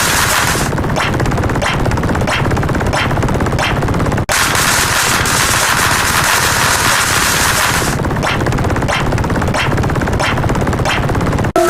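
Machine-gun fire sound effect: rapid continuous shots, the recording restarting with a split-second gap about four seconds in and again near the end.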